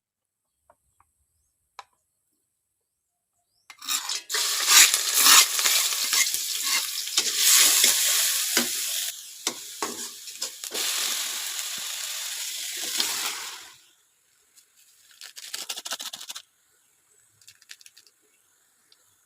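Food sizzling in hot oil in a pan and being stirred, starting suddenly about four seconds in and dying away about ten seconds later, with a shorter burst of sizzling and stirring near the end.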